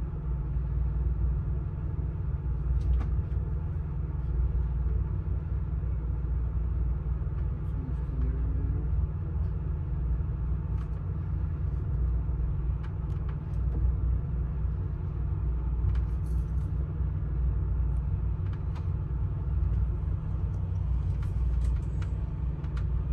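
Amtrak California Zephyr passenger car rolling along the track: a steady low rumble with faint scattered clicks and rattles.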